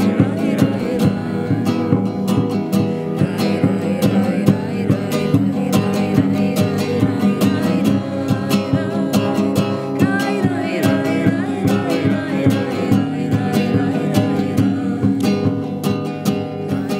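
Music with a strummed acoustic guitar and a singing voice, fading out near the end.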